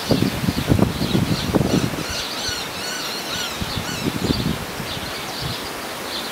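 Birds chirping in the tree canopy, with a cluster of quick, high, squeaky calls in the middle. Leaves rustle in the wind, with low buffeting strongest in the first two seconds.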